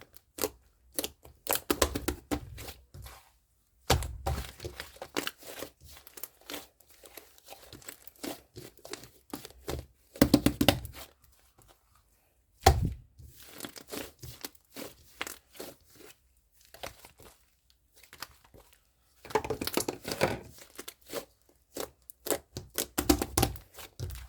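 Fluffy clay slime being squished, stretched and pressed by hand, making irregular bursts of crackling, tearing and popping sounds with a few soft thuds, separated by short pauses.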